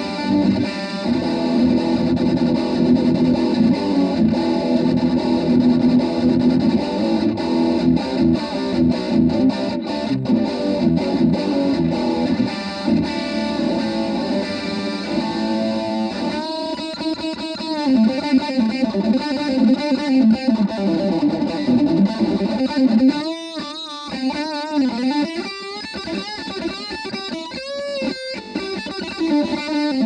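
Electric guitar played through a Randall NB15 combo amp on its distortion channel with the solo boost switched on for extra gain. Heavily distorted chords and riffs give way, about halfway through, to single-note lead lines with bent, wavering notes.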